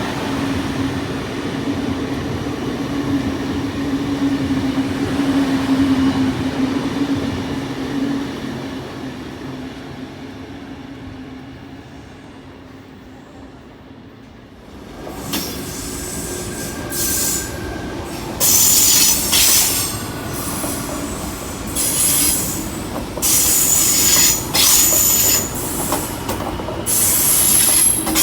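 Electric suburban passenger train running with a steady low hum that fades away over several seconds. About halfway through another train comes in, and its wheels squeal loudly and high-pitched again and again on the rails.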